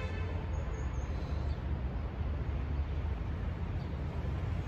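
Steady low outdoor rumble of distant city traffic, with wind on the microphone.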